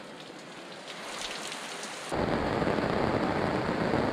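Heavy rain pouring down, a steady hiss that becomes louder and fuller, with a low rumble underneath, about two seconds in.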